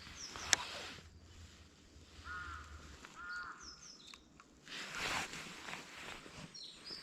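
A crow cawing twice, about two and three seconds in, with small birds chirping high above it. A brief rush of noise about five seconds in is the loudest sound.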